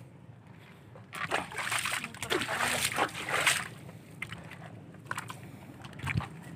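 Seawater splashing and sloshing for about two and a half seconds, starting about a second in, with a few sharp clicks around it.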